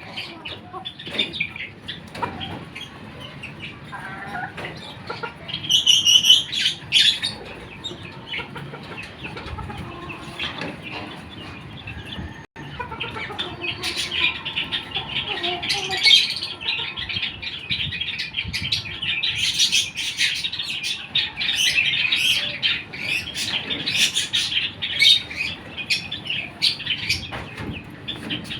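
Silkie chickens clucking amid dense, high-pitched chirping from many birds, with a louder call about six seconds in. The sound drops out for a moment near the middle, and after that the chirping is denser and louder.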